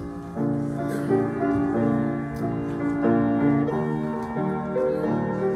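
Piano playing the introduction to a hymn, a run of chords and melody notes at a steady, moderate pace.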